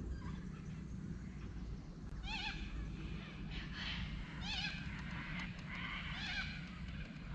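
A bird calling in three short bouts of quick rising-and-falling notes, over a steady low rumble.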